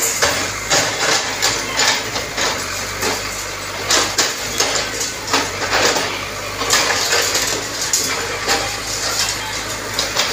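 Cat backhoe loader's diesel engine running steadily while its bucket knocks apart a brick wall, with bricks and rubble repeatedly crashing and clattering down onto the debris pile.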